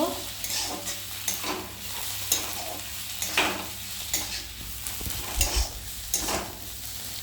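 Onions and red and green capsicum with chilli powder sizzling in oil in a kadai. They are stirred, with a sharp scrape against the pan about once a second over the steady sizzle.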